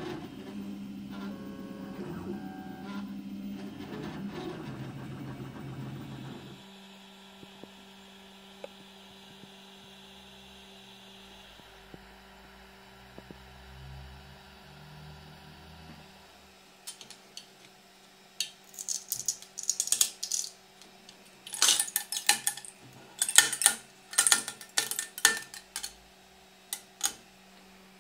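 A 3D printer's stepper motors run in a series of stepping pitches, then drop to a quieter steady hum about six seconds in. From about seventeen seconds in come bursts of sharp clicks and taps: the printed polycarbonate part knocking on the hard print bed as it is handled.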